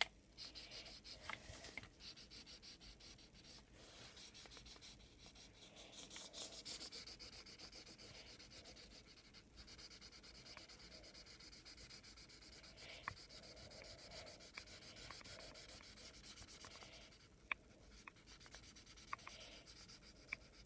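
Felt-tip marker colouring in on paper: faint, quick back-and-forth strokes of the tip rubbing across the sheet. The strokes ease off a little near the end, with a few light ticks.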